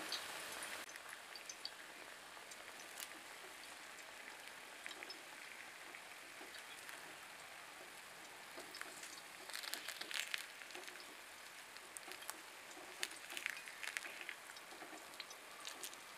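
Batter frying in oil in the hollows of an appa pan: a faint steady sizzle with scattered small crackles and pops, which come thicker twice, about ten seconds in and again around thirteen seconds.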